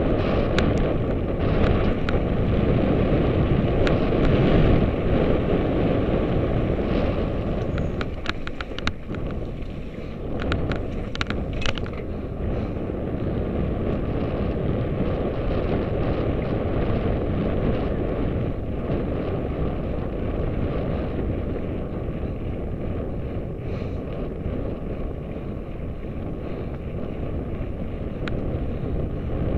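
Wind buffeting the microphone of a mountain bike's mounted camera while the tyres rumble over a dirt track at speed. There is a run of sharp clicks and rattles between about eight and twelve seconds in.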